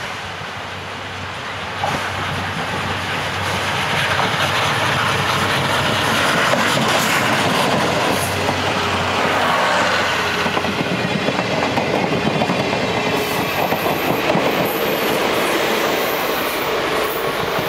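Steam train passing close by: locomotive C11 207 and its coaches rolling past, wheels clattering over rail joints, growing louder over the first few seconds and then staying loud.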